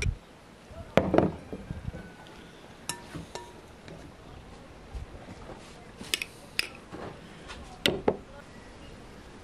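A metal spoon clinking against glass jars and filled glass jars knocking as they are set down on a wooden table. There are a few separate sharp clinks and knocks, the loudest about a second in and near the end, and a brief ring of glass about three seconds in.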